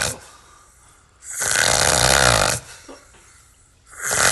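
A man snoring loudly, with long, rough snores repeating every two to three seconds: one dies away at the start, a full one comes about a second in, and another begins near the end.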